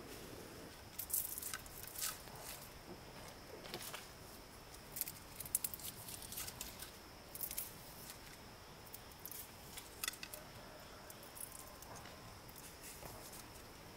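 Irregular light clicks and crackles, some in quick clusters, over a faint steady hiss and a thin steady high tone.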